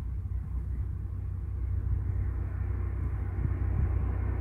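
Distant SU45 diesel locomotive hauling a passenger train: a low, steady engine rumble that grows gradually louder as the train approaches.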